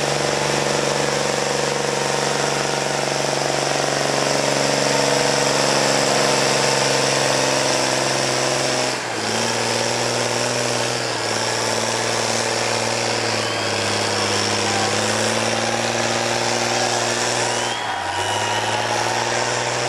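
Farm tractor's diesel engine running hard under heavy load as it drags a weight-transfer sled: a loud, steady, throbbing note whose pitch drifts slightly. The sound breaks off abruptly and resumes twice, about nine seconds in and near the end.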